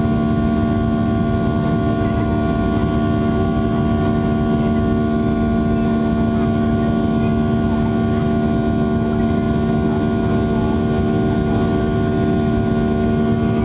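Cabin noise of a Boeing 737-800 in flight, loud in the forward cabin: its CFM56-7B jet engines run at a steady drone, with several steady hums over a broad rush of air.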